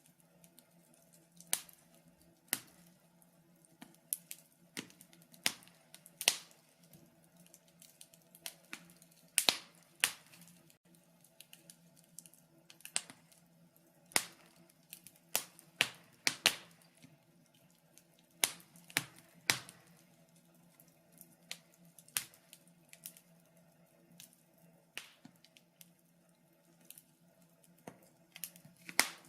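Wood fire crackling: irregular sharp pops and snaps, some much louder than others, over a faint steady low hum.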